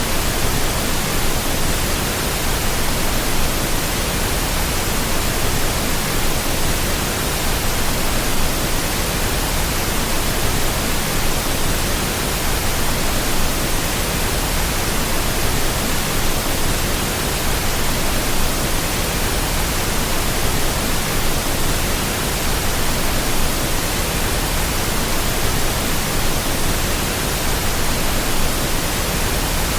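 Steady, loud, even rushing hiss with no rhythm, tones or changes.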